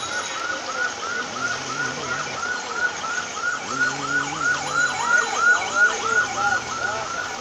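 An electronic alarm chirping rapidly, about four short rising-and-falling beeps a second, with a second alarm overlapping it for a couple of seconds in the middle. Under it is the steady hiss of heavy rain on a flooded street.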